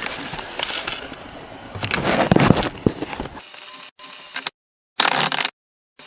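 Scattered knocks and clinks of metal driveshaft parts being handled, the sound cutting out to dead silence several times in the second half.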